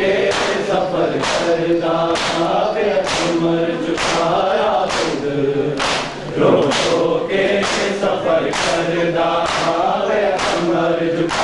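Men's voices chanting a noha, a mourning lament, together, with hard slaps of hands on bare chests (matam) landing in unison about twice a second.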